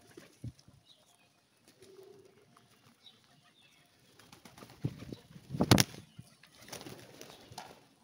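Wings flapping as a flock of feral pigeons flutters and takes off at close range, in irregular bursts; the loudest burst of wingbeats comes a bit before six seconds in. One brief low coo sounds about two seconds in.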